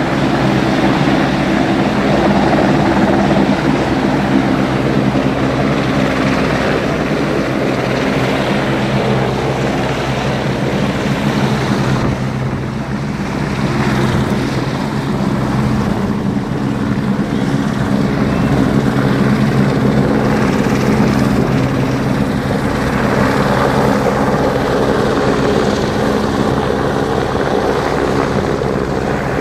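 Helicopter hovering: a loud, steady rotor and engine drone that eases slightly for a moment about halfway through.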